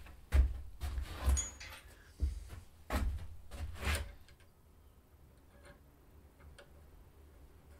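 Several sharp metal clacks and knocks in the first four seconds as a hand tap wrench is handled and fitted onto a thread tap in an aluminium engine case, followed by a few faint light ticks.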